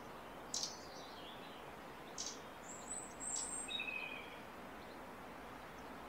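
Wild birds calling: short, sharp high chirps about half a second and two seconds in, then thin high whistled notes and a few lower notes around three to four seconds in, over a steady outdoor hiss.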